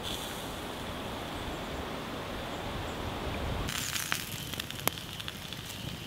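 A steady rushing noise for the first three and a half seconds, then an open wood campfire crackling and popping, with one sharp pop about five seconds in.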